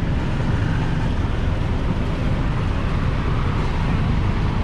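Steady street noise of traffic running by, dense and low, with no single event standing out.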